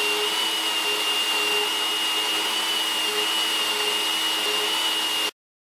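Small electric chainsaw running under load, ripping lengthwise through a blackwood log on a chainsaw mill. It gives a steady motor whine held at one pitch over the noise of the chain cutting. The sound cuts off suddenly near the end.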